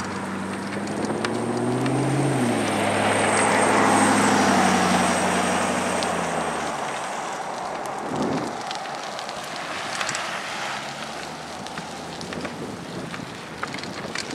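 A car drives past on a wet street: engine hum and tyre hiss swell over the first few seconds, the engine's pitch dropping as it goes by, and fade out by about seven seconds in. Quieter outdoor noise with a few small clicks follows.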